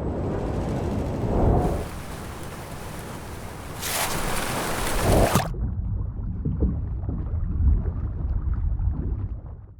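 City street noise: a low traffic rumble with a loud hissing swell about four seconds in. About halfway through, the sound turns suddenly muffled, then fades out at the end.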